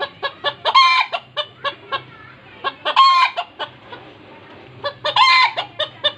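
Bantam chickens clucking in a quick series, about three or four clucks a second, with three louder, longer calls about two seconds apart.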